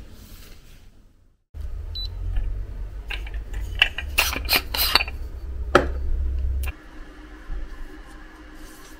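Kitchenware handling: a run of sharp clicks and knocks, like dishes and utensils being set down, over a low rumble. After a cut, a quieter steady hum.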